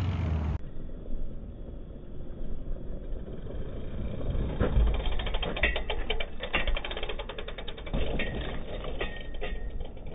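BMX bike's rear freewheel hub ticking rapidly as the bike coasts over, with a low thump about halfway through, over a low rumble.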